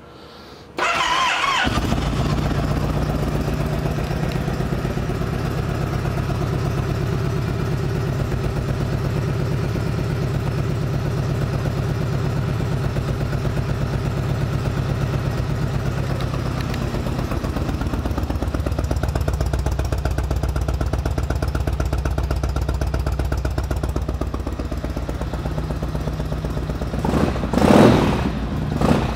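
A 2018 Yamaha Star Venture's V-twin engine being started: a brief whir of the starter about a second in, then it catches and settles into a steady idle. Near the end the throttle is blipped a couple of times, briefly raising the revs.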